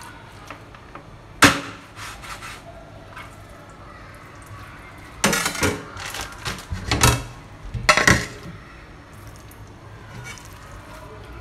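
Meat cleaver chopping a raw chicken thigh into pieces: one sharp chop about a second and a half in, then a run of knocks and clatter between about five and eight seconds.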